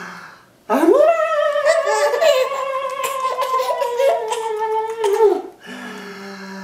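Playful voices of a man and a laughing baby. A long, high, drawn-out vocal note wavers and slowly falls in pitch for about four seconds, then a low steady hum follows near the end.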